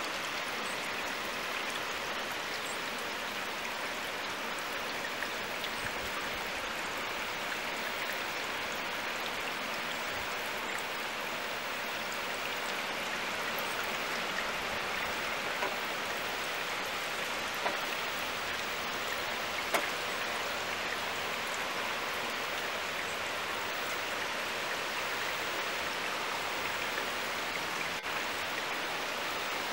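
Steady hiss of heavy rain mixed with the rush of a swollen river, with a few brief sharp ticks about halfway through.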